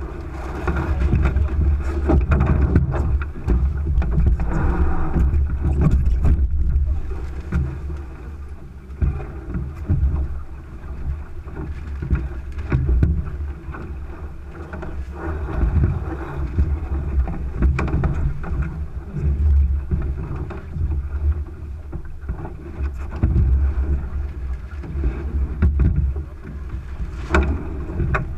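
Water rushing along the hull of a Thistle sailing dinghy under way, with wind buffeting the microphone in a deep rumble. The sound rises and falls every few seconds, and there are a few light knocks from gear on deck, the clearest near the end.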